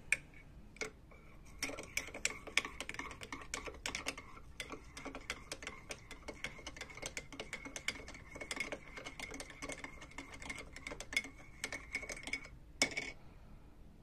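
Metal teaspoon stirring coffee in a ceramic mug: rapid light clinks of the spoon against the inside of the mug, with a faint ringing from the mug, for about ten seconds. A single louder clink near the end.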